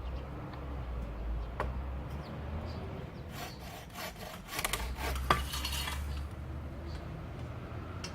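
Handsaw rasping through beefwood in a run of scraping strokes for about three seconds in the middle, with a single click earlier and a sharp crack partway through the strokes, over a steady low rumble.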